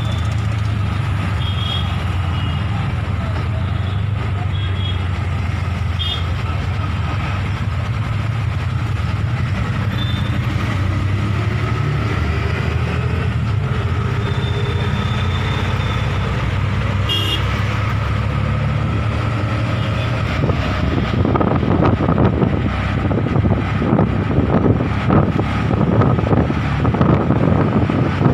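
Auto-rickshaw's small engine running steadily, heard from inside its open cabin, with short horn toots every few seconds. In the last third, gusty wind noise buffets the microphone.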